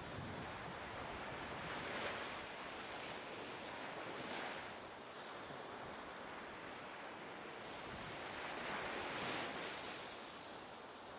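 Rushing sea and wind noise, an even hiss that swells louder and eases off every few seconds, like waves breaking.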